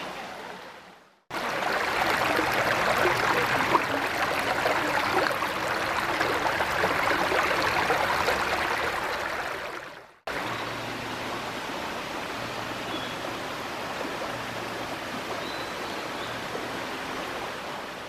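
A mountain stream rushing over rocks: a steady, loud water noise. It is cut off sharply about a second in and again about ten seconds in, and comes back quieter after the second cut, with a couple of faint short high bird chirps.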